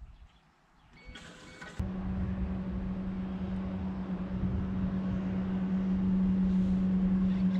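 Bass boat motor humming steadily at one pitch over a low rumble, starting about two seconds in and growing slightly louder. It is preceded by a brief higher-pitched sound.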